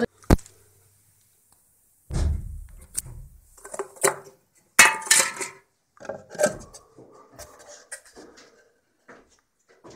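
Handling noise: scattered knocks and clatter of hard objects as a wooden board is moved about. There is a sharp click just after the start, a dull thump about two seconds in, and the loudest clatter about five seconds in.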